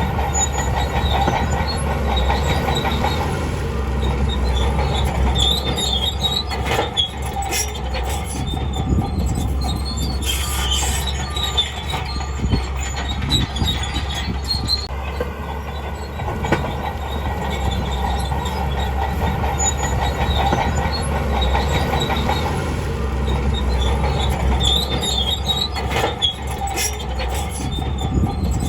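Crawler bulldozer working: a steady diesel engine drone under the squeal and clank of steel tracks, with the squeals rising and falling every few seconds and sharp metallic knocks now and then.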